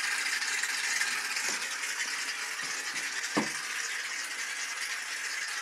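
Aerosol can of Mr. Bubble foam soap spraying foam into a bathtub, a steady hiss. About three and a half seconds in there is a short falling squeak.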